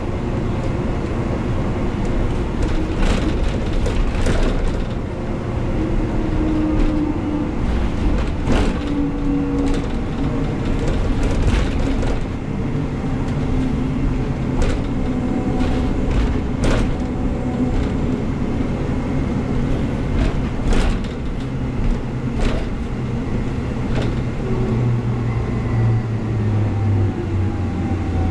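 Cabin noise of a moving articulated bus: a steady drone of engine, driveline and road, with engine tones that drift up and down as it speeds up and slows, and frequent short knocks and rattles.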